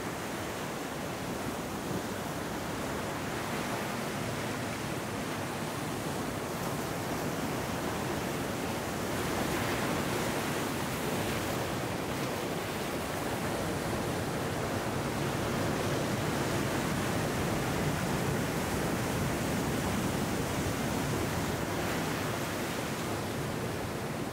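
Ocean surf washing in over a rocky beach, a steady rushing noise that swells louder about nine seconds in and eases a little near the end.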